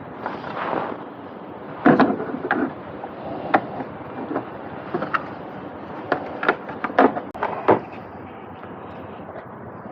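Parts and tools being handled during a hands-on install: a string of irregular sharp knocks and clicks, loudest about two seconds in and again around seven seconds in.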